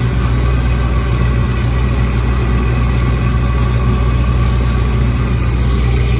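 Lobster boat's engine running steadily under way, a deep drone, with the rush of the propeller wash churning behind the stern.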